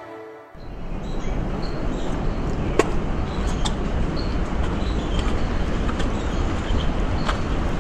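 Steady outdoor wind noise rumbling on the microphone, with a few short high chirps and light clicks over it. A music track cuts off about half a second in.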